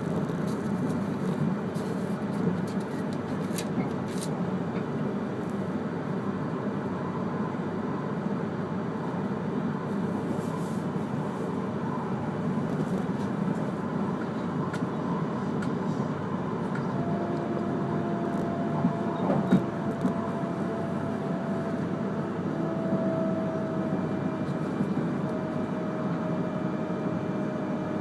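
Cabin running noise of an E3-series Akita Shinkansen Komachi train: a steady rumble of wheels on rail. A whine joins a little past halfway and slides slowly lower in pitch, with a brief knock just after it starts.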